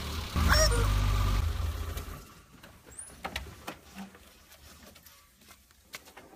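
A small car's engine rumbles loudly for about a second, then dies away. A few light clicks and knocks follow, with a brief squeak near the start.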